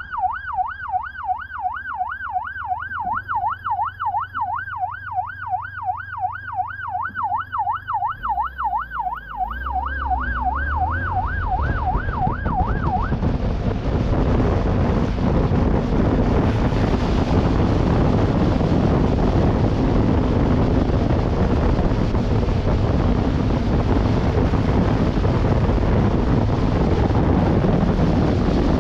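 Police motorcycle siren wailing fast, its pitch sweeping up and down several times a second, until it cuts off about 13 seconds in. After that, steady wind rush on the microphone and the motorcycle running at speed.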